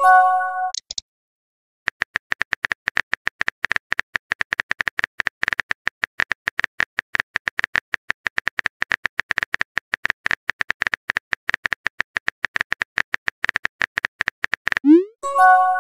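Phone-keyboard typing sound effect: a rapid, even run of small key clicks while a text message is typed out. About a second before the end, a short rising swoosh and a brief chime of several notes mark the message being sent; a similar chime sounds at the very start.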